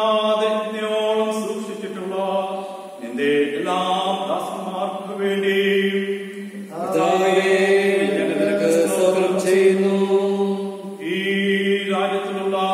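A man's voice chanting a liturgical prayer, holding long steady notes in phrases of a few seconds with short breaks between them.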